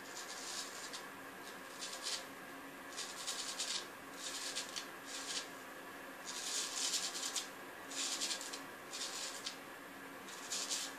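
Strokes of an early-1900s A.J. Jordan straight razor scraping through lathered beard stubble on the neck: a run of short scratchy rasps, about nine, some under half a second and one lasting over a second.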